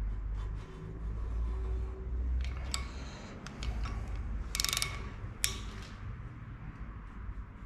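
Ratchet wrench on the crankshaft snout turning a bare V6 engine over by hand, its pawl clicking as the handle is swung back and forth, with a quick run of clicks about four and a half seconds in and one sharp click just after. The crank is being inched round to read lifter lift while degreeing the camshaft.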